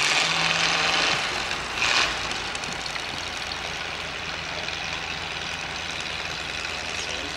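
Steam donkey engine working a log on its cable: a loud hiss of steam for about a second and a half, a second short hiss about two seconds in, then steadier, quieter running noise.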